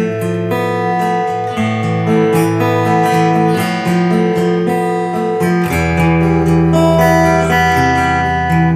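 Guitar music from a CD playing through a restored Dynaco ST70 tube stereo amplifier and Polk speakers. A deeper bass comes in about two-thirds of the way through.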